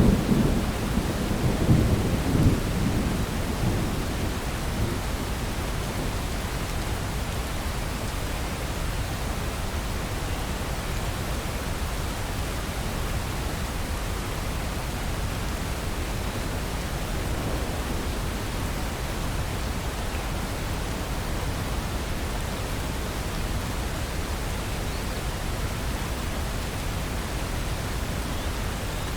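Steady rain, with a low rumble of thunder in the first few seconds that fades out by about four seconds in.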